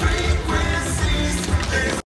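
Recorded dance music for a group routine, with heavy bass.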